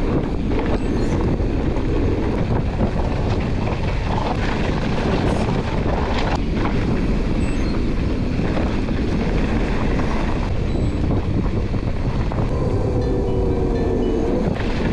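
Wind buffeting the microphone over the steady rumble of a mountain bike's tyres on a rough trail, with scattered knocks and rattles. A faint wavering whine comes in near the end.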